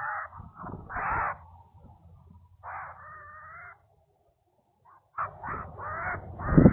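A string of short animal calls in two groups: a few calls, then after a silent break of about a second, a quicker run of calls that ends in the loudest one.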